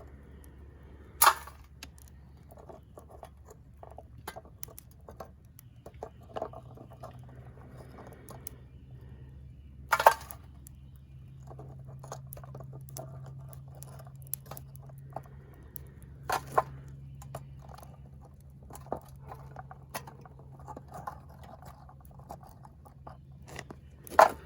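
Small metal-melting furnace running with a low steady hum that steps up slightly in pitch about five seconds in. Four sharp knocks, about 1, 10, 16 and 24 seconds in, sound over it, along with many small clicks.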